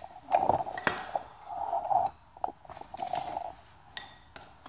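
Scattered light clicks and small clinks with some rustling: handling noise as the camera is moved about.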